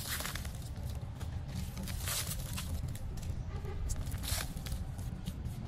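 Rustling and scraping from hands handling a seedling among dry leaves, with brief louder rustles about two and four seconds in, over a steady low rumble.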